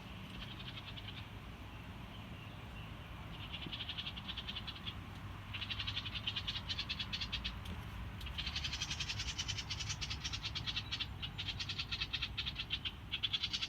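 House wren giving rapid, rattling trills in repeated bouts of one to four seconds each. The bouts grow louder and fuller in the second half.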